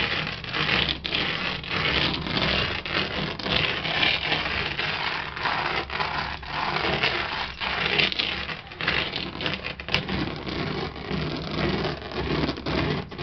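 Stone grinding roller rolled back and forth over dried green gram spread on a cloth, a steady rough scraping with many small cracks as the beans are crushed and their shells cracked off.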